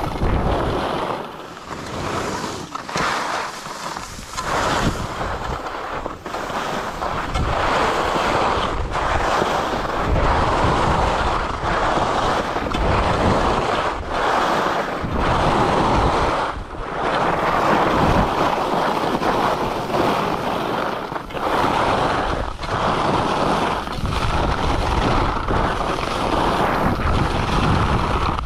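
Wind rushing over the camera microphone on a downhill ski run, with skis scraping over the packed piste snow. The rushing swells and drops every second or two.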